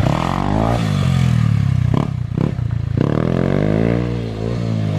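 Dirt bike engines riding past, their pitch rising and falling as they rev through the gears, with a couple of sharp knocks about two seconds in.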